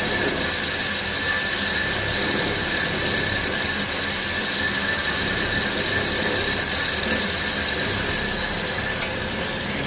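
HEM 1200 LAS horizontal bandsaw running steadily through a cut, a constant mechanical noise with a steady whine. One sharp tick about nine seconds in fits the little skip the presenter expects from the blade's damaged teeth.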